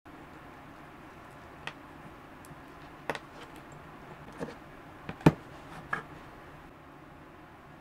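About five short clicks and taps from handling a loose 18650 lithium-ion cell and a battery tester's metal test probes on a workbench, the loudest about five seconds in, over a steady low hiss.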